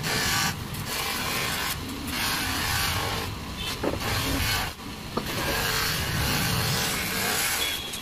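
Cloth buffing wheel on a pedestal buffing machine polishing a stainless steel door-stopper tube: a steady rushing rub of metal against the spinning wheel, broken by a few brief dips.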